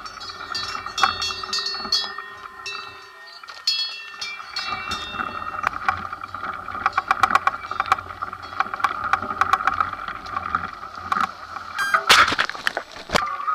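Mountain bike on a loose gravel climb: tyres crunching over stones, with clicks and rattles from the bike and a steady noise behind. Bell-like ringing in the first three seconds, and a loud clatter about twelve seconds in.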